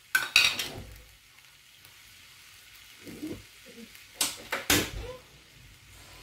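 Chicken frying in a pan with a faint sizzle. A metal spoon clinks just after the start, and about four seconds in two sharp clicks come from the gas stove's burner knob being turned.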